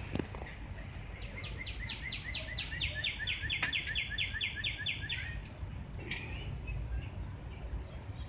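A small bird singing a rapid, even series of about twenty short repeated notes lasting about four seconds, over a low steady background rumble.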